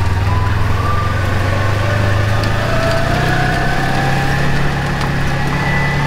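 Side-by-side utility vehicle's engine running as it drives through the snow, its note rising about halfway through as it picks up speed. A thin whine rises slowly alongside it.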